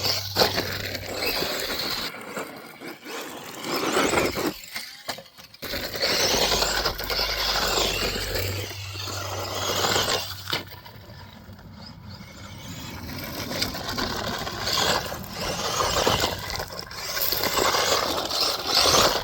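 Tamiya Subaru Brat radio-controlled car driving on a dirt track: its electric motor whining and tyres scrabbling and scraping for grip. The sound swells and fades in repeated surges as the car accelerates and passes, with a few brief gaps, and cuts off sharply at the end.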